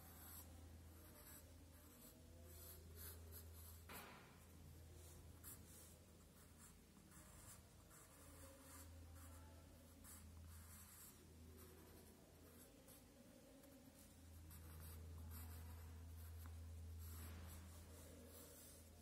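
Faint scratching of a pen drawing lines on paper, the strokes coming and going irregularly over a low steady hum.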